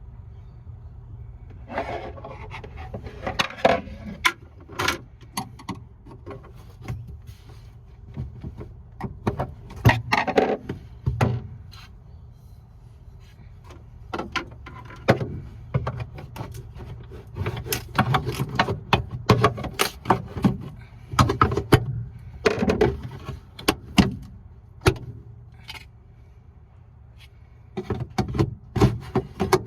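Irregular clicks, knocks and scrapes of a Liebherr fridge drawer rail being handled and fitted, coming in clusters over a steady low hum.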